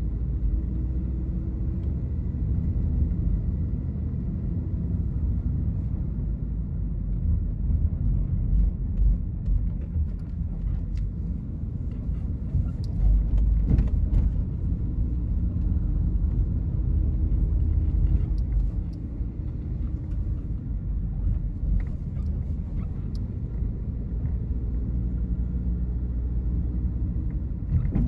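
Low, steady rumble of a moving car's road and engine noise, with a few faint clicks.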